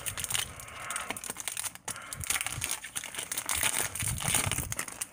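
Foil wrapper of a Pokémon trading card booster pack crinkling in the hands and being torn open, a rapid run of crackles.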